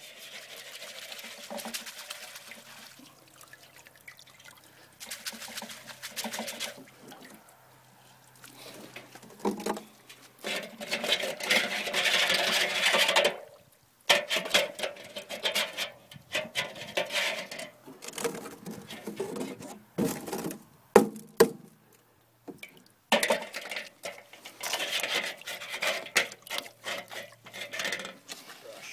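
Water splashing and pouring as the gold rocker's matting and expanded mesh are rinsed in a tub, in several runs of a few seconds each with short pauses between. A few sharp knocks come about two-thirds of the way through.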